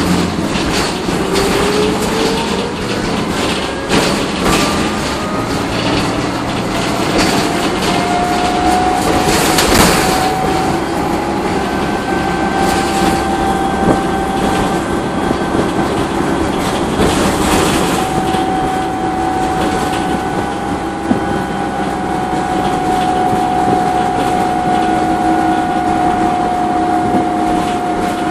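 Interior of a city transit bus under way, heard from the rear seats: the drivetrain whine from its Voith automatic transmission rises in pitch over the first several seconds as the bus gathers speed, then holds steady while it cruises. Engine and road rumble run underneath, with rattles from the cabin.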